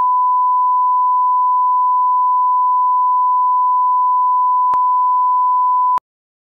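Steady single-pitch test tone, the line-up reference tone that accompanies broadcast colour bars, held at one level and cutting off abruptly about six seconds in.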